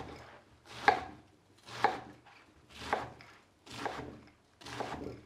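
Kitchen knife chopping a quartered Napa cabbage on a wooden cutting board, one cut about every second, six cuts in all.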